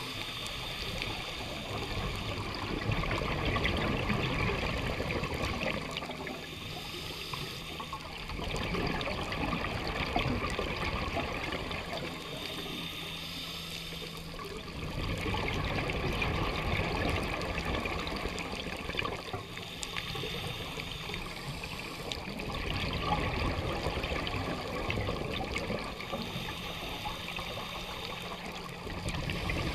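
Scuba diver breathing underwater through a regulator: bubbly exhalations swell and ease in a repeating cycle about every six to seven seconds.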